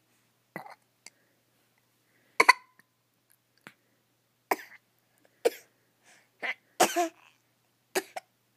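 A baby's short coughs and brief vocal sounds, about ten separate bursts with silence between them.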